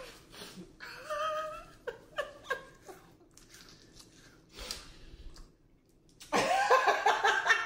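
Two people laughing: a short laugh about a second in, short breathy bits after it, and a loud burst of laughter near the end.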